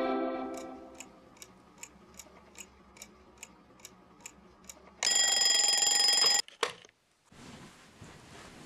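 A clock ticking about two and a half times a second, then an alarm clock going off about five seconds in: a loud, steady high electronic ring lasting about a second and a half that cuts off abruptly, followed by a couple of clicks as it is switched off.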